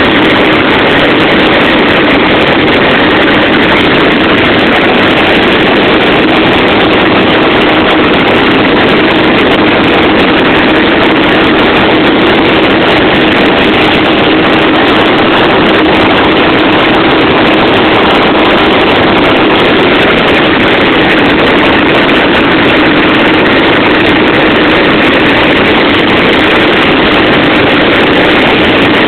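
Helicopter in flight heard from aboard: a loud, steady drone of engine and rotor that does not change.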